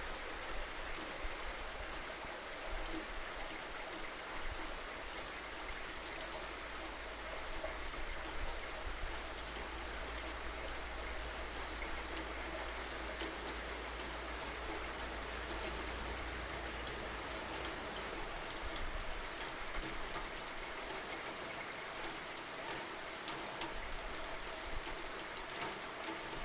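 Steady rainfall, with scattered drops pattering on a surface and a constant low rumble underneath.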